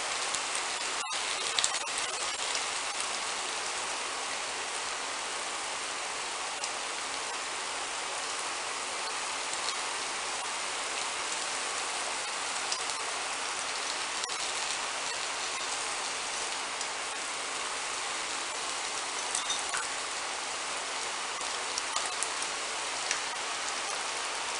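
Egg whites and red onion rings frying in hot oil in a nonstick pan: a steady sizzle with a few small pops.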